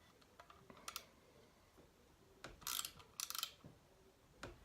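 A spanner turning the nut on a threaded rod that presses a star nut into a fork's steerer tube: light metal clicks and two short scraping rasps a little past halfway.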